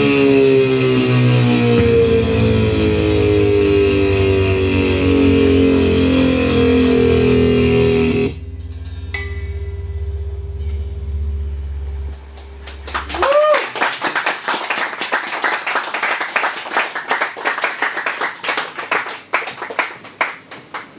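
A live rock band with electric guitar and bass holds a loud closing chord that slowly slides down in pitch, then cuts off suddenly about eight seconds in, leaving a low bass drone that dies away a few seconds later. The audience then claps, with a short whoop as the clapping starts.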